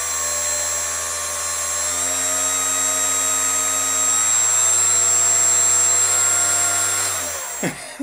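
Electric motor spinning a homemade ducted fan, made from the rotor of a 12 V cooling fan, at full speed with a steady whine of several pitched tones. It rises slightly in pitch about two seconds in, then spools down near the end.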